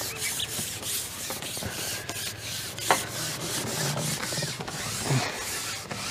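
Repeated rubbing and scraping strokes, with one sharp click about three seconds in.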